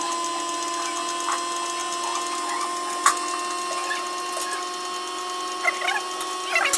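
Steady machine hum made of several held tones, with a sharp click about three seconds in and a few short bird calls near the end.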